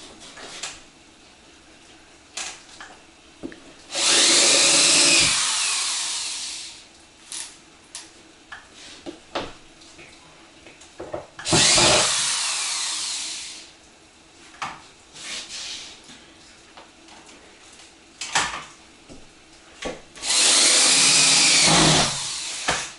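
Power drill driving screws through a ceiling panel into the wooden ceiling boards, in three runs of about two seconds each, with small knocks and handling noises between them.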